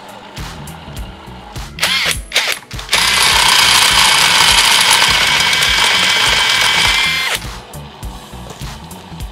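Cordless impact driver with a socket on a car alternator's pulley nut: a few short blips, then a steady high-pitched run of about four seconds that then stops.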